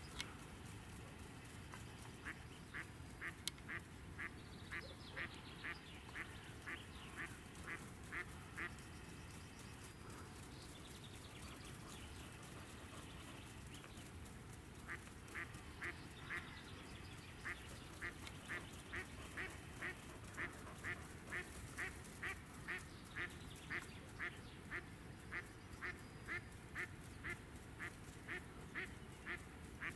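Mallard hen, a live decoy duck, quacking in long, evenly paced series of about two quacks a second to call in drakes: a short run in the first few seconds, then a longer run from about the middle to near the end. A single sharp click comes about three seconds in.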